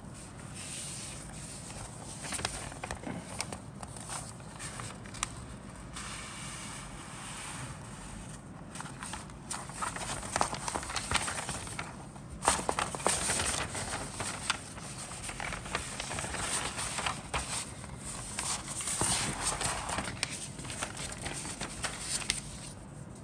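Paper rustling and crinkling as the pages of a plastic model kit's instruction booklet are handled and turned, coming in repeated bursts that are loudest in the second half.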